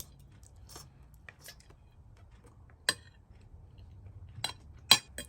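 A cooking utensil clinking and tapping against cookware as fried rice is served, with faint scraping between. There are scattered sharp clinks, the loudest about three seconds in and just before the end.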